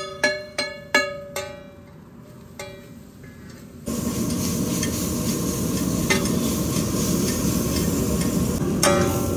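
Plucked-string background music, then from about four seconds in a steady sizzle and scrape of noodles being stir-fried and tossed with a spatula on a large flat steel griddle, with a few sharp spatula clicks on the metal. The music comes back near the end.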